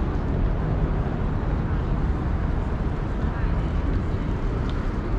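Steady outdoor city-square ambience: a wash of passers-by's voices and traffic, with a heavy low rumble underneath.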